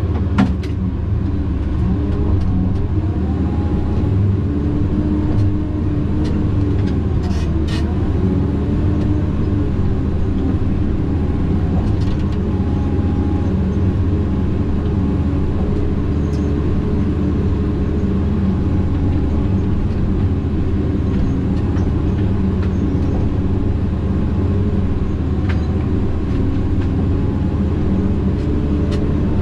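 Tigercat 610E skidder's diesel engine running steadily under work, with a higher whine that rises and falls a few times. There are a few sharp clicks or knocks early on.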